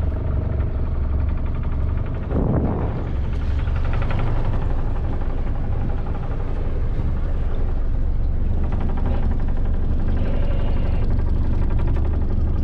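A C-Dory boat's engine running at a steady low drone while the boat is under way, with a brief rush of noise about two seconds in.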